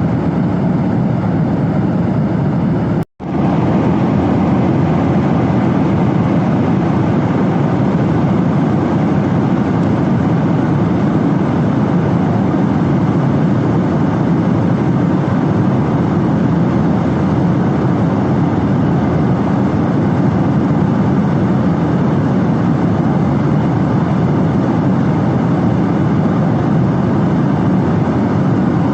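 Airliner cabin noise in flight: a loud, steady, low rushing of engines and airflow, broken once by a sudden brief dropout about three seconds in. The uploader finds the sound strange.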